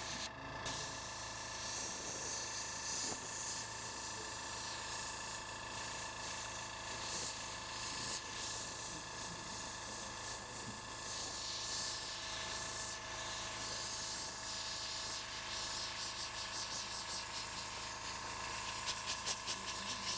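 Airbrush blowing a steady hiss of compressed air over wet paint, pushing the paint across the surface, breaking into a few quick pulses near the end.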